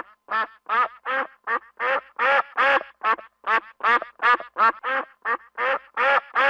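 Duck quacking in a steady, rapid series of about eighteen loud, nasal quacks, nearly three a second.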